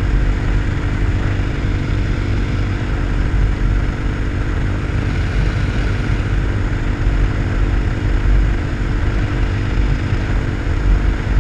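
RPS Hawk 250 single-cylinder engine running steadily while riding at road speed, mixed with heavy low wind rumble on the camera microphone.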